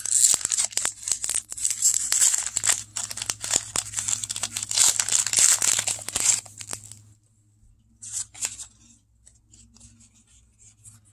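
A Pokémon Darkness Ablaze booster pack's foil wrapper crinkling and crackling as it is torn open and the cards pulled out, stopping about seven seconds in. After that, only soft scattered ticks as the stack of cards is handled.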